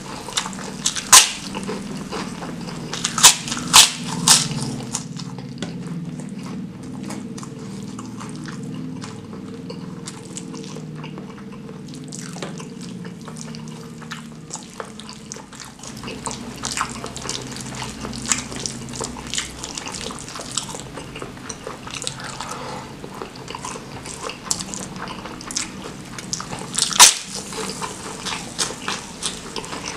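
Close-miked mukbang eating: wet chewing and smacking of spicy squid and rice eaten by hand. A few sharp crunching bites stand out about a second in, twice around three to four seconds, and once near the end.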